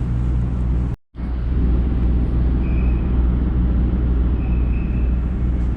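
A vehicle engine running with a steady low drone over a rushing noise, heard from on board. The sound breaks off briefly about a second in, then carries on the same.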